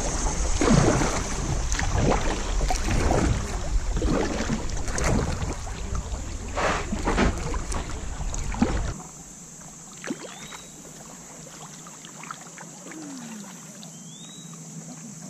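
Kayak running a shallow riffle: rushing water and paddle splashes, with wind buffeting the microphone. About nine seconds in it drops suddenly to calm water, with only faint paddle drips and a few faint chirps.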